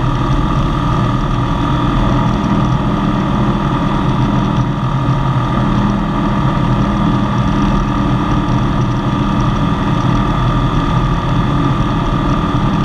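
Engine and propeller of a RANS S-7S light aircraft running steadily in flight, heard from inside the cockpit.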